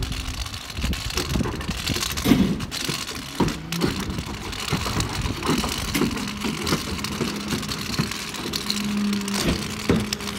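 Cardboard recycling truck running in steady rain, with scattered knocks, and a steady low hum that comes in about halfway through and holds.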